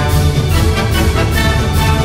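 Loud music with a steady, fast beat and heavy bass.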